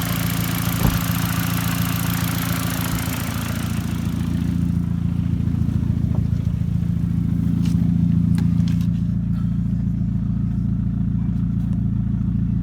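Volkswagen Jetta GLI engine idling steadily on its newly fitted 2.0T ignition coils and spark plugs, with a hiss that fades away over the first few seconds.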